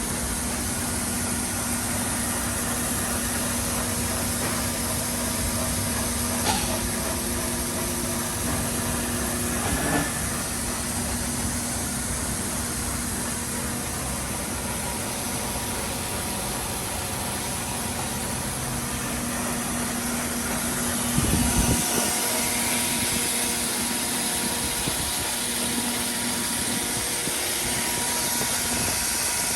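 Grinding machine running during shaft grinding: a steady motor hum with a hiss over it, and a few short louder spots about six, ten and twenty-one seconds in.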